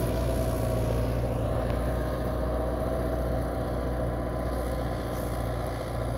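Fendt 412 tractor's diesel engine running steadily under load while pulling a square plough, gradually getting quieter.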